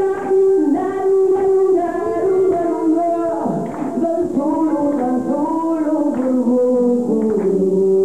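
A woman singing a slow blues-rock melody, holding long notes, over a live band with electric guitar.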